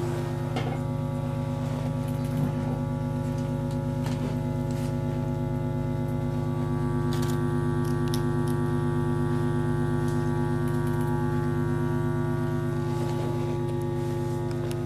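Steady amplified electronic drone: a low hum layered with several held tones. More, higher tones join about halfway through, and a few faint clicks sound over it.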